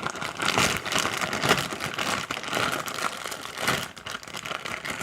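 Plastic zip-top bag crinkling and rustling steadily as a large, sticky slime is worked out of it by hand.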